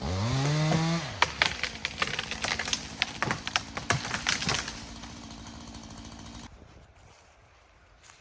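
Chainsaw engine revving up, rising in pitch for about a second, followed by a run of irregular sharp cracks and snaps over a few seconds.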